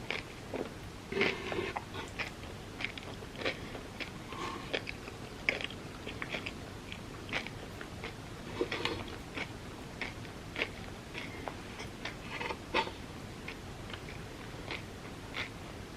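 Close-miked chewing and biting of Dubai chocolate filled crepes, with irregular soft crunches and mouth clicks.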